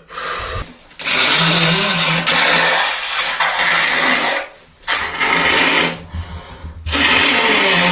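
A person blowing their nose hard, in three long forceful blows: the first lasts about three seconds, a shorter one comes about five seconds in, and a third starts near the end.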